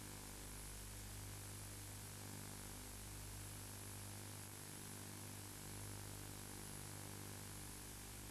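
Steady analogue-tape hiss over a low electrical hum, with no other sound.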